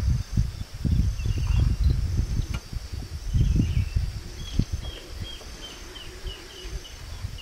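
Outdoor ambience with a steady, high insect drone and wind buffeting the microphone in low gusts. From about halfway, a run of short chirps comes about three a second; no loud macaw calls are heard.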